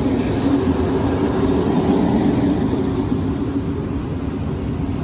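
Diesel-electric locomotive (EMD G22W-AC) running, a steady low rumble that slowly eases off.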